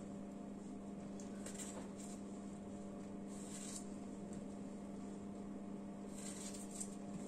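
Steady low electrical hum, with a few faint, short, crisp sounds of a knife cutting through raw apple on a plastic cutting board.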